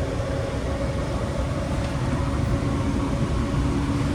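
Steady rumble and hum of a Caltrain train heard from inside a passenger coach, with two even hum tones over the low rumble.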